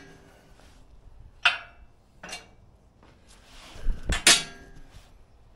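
Steel parts of a winch cable tension plate clanking as they are handled and taken apart: several sharp metal clanks with a short ring, the loudest cluster about four seconds in.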